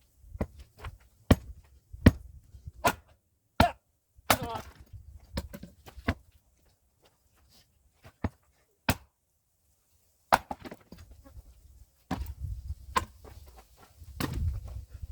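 Hand axe striking a log of firewood again and again: a dozen or so sharp knocks at uneven intervals, sped up to double speed. The log will not split, which the splitter puts down to twisted, unbalanced grain inside.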